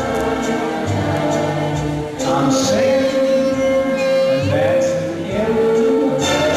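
Orchestral music with singing voices holding long notes.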